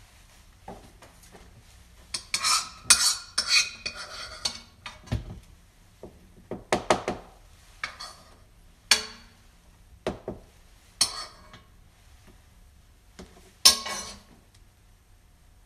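Metal kitchen utensils and dishes being handled on a counter: a quick flurry of rattling clinks a couple of seconds in, then single clinks and knocks about every second, one of the loudest near the end.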